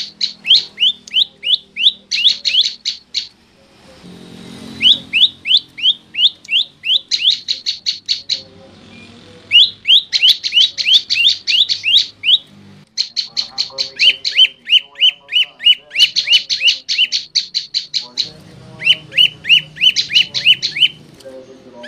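Prenjak lumut singing its loud call: sharp notes repeated about four or five times a second in runs of two to three seconds, with short pauses between runs.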